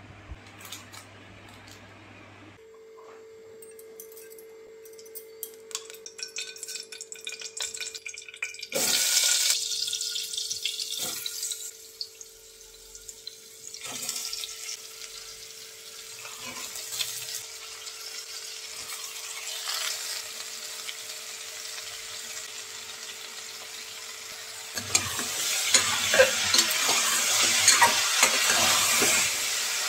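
Chopped vegetables dropped into an aluminium pressure cooker with scattered knocks, and a loud rushing burst about nine seconds in. From about 25 seconds, a ladle stirs the vegetables in the pot, scraping and clicking against the metal.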